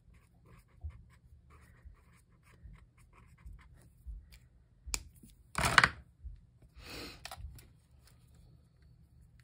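Pen writing on planner paper in small scratchy strokes, with two louder paper rustles a little past the middle, the first the louder.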